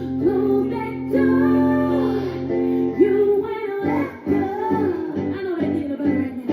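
A woman singing a song over instrumental backing of sustained chords and bass.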